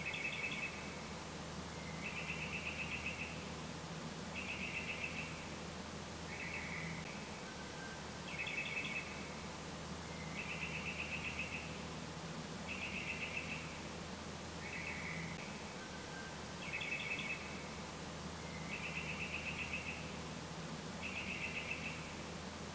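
An animal's short pulsed trill, repeated about every two seconds, over a faint steady low hum.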